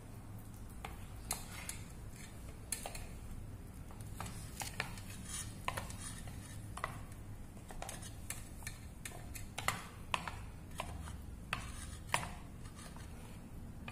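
A metal teaspoon stirring in a small bowl, clinking irregularly against its sides as flour is mixed into red-coloured water to make a play dough paste.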